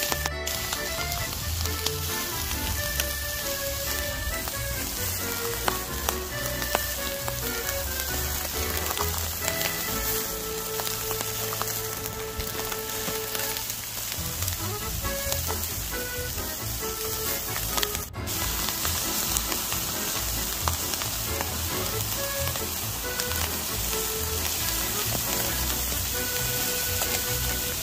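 Chicken leg quarters sizzling and crackling steadily on a grill over hot charcoal.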